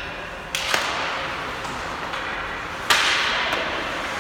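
Ice hockey play sounds: a sharp crack of stick and puck about half a second in and a louder crack near three seconds, each followed by a hiss that fades slowly in the echo of the rink.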